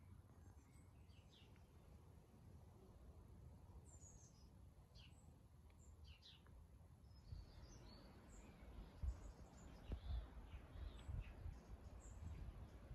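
Faint birdsong: scattered short chirps and calls from small birds. From about halfway through, irregular low rumbling thumps come in and become the loudest sound.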